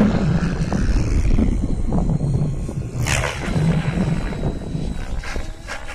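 Align T-Rex 700E electric RC helicopter flying fast overhead: its rotor blades whoosh in pulses over a thin high motor whine, swelling and fading, with a sharp loud whoosh about three seconds in.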